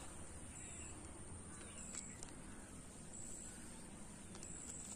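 Quiet outdoor ambience with a short, high-pitched chirp repeating about every second and a half, and a few faint clicks from the revolver and cartridges being handled.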